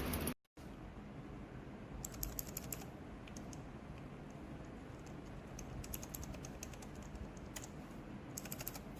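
Mechanical keyboard switches on an acrylic switch tester being pressed, making quick runs of sharp clicks in several bursts over a steady hiss.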